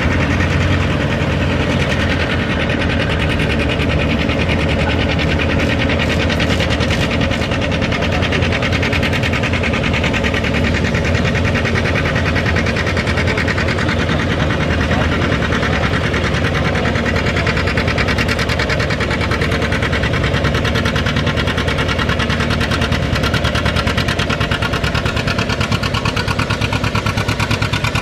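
Vintage John Deere two-cylinder tractor engine working hard under load as it pulls a weight-transfer sled, its exhaust beating in a steady, rapid rhythm with no let-up.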